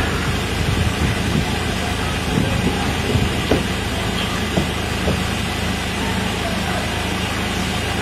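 An engine idling steadily, a low even hum.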